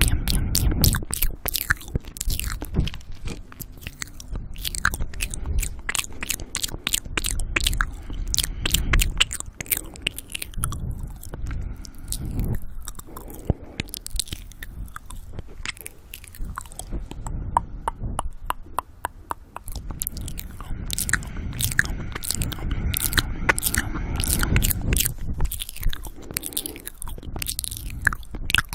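Close-miked ASMR mouth sounds: a dense, continuous run of wet lip and tongue clicks and smacks, with heavy breathing into the microphone.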